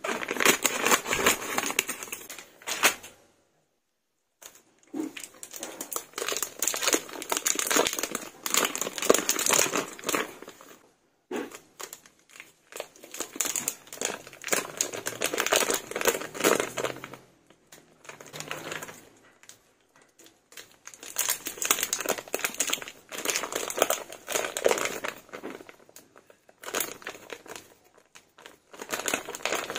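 Thin plastic film crinkling and rustling in bursts with short pauses between them, as the wrapping is peeled off individual skinless longaniza sausages.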